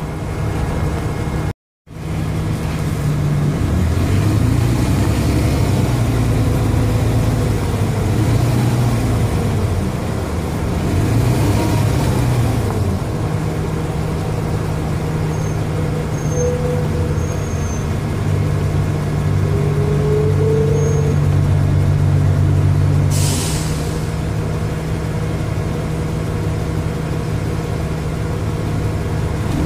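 Dennis Trident double-decker bus engine working, rising and falling in pitch as it pulls through the gears, then holding a steady drone. It is loud, which the uploader puts down to a bad turbo. Later on, a short burst of air hiss from the air brakes.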